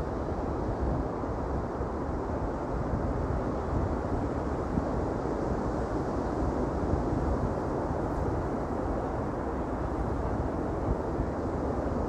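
Wind buffeting the microphone: a steady low, rushing noise with no distinct events.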